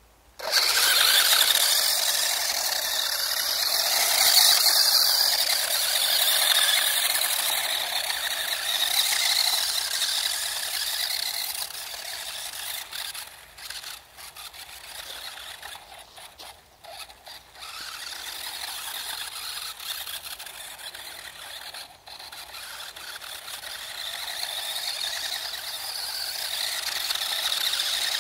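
Small electric RC drift car running, a continuous high-pitched whine and squeal that swells and falls as it drives. It starts abruptly, drops lower and choppier through the middle, and builds again near the end.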